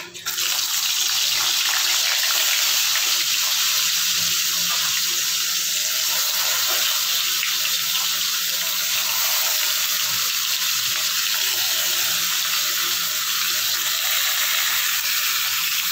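Turmeric-and-salt-rubbed fish pieces deep-frying in hot mustard oil in a kadhai, a loud, steady sizzling hiss.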